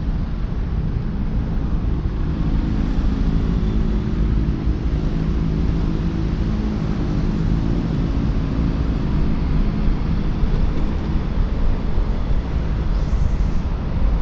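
Wind rushing over a helmet-mounted microphone on a moving QJMotor Fortress 160 scooter, a steady low rumble. The scooter's engine tone shows faintly under the wind through the middle.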